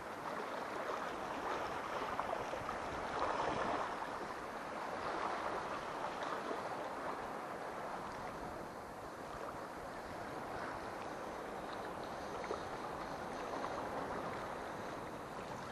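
Small sea waves lapping and washing against the rocks just below, a steady wash that swells and eases.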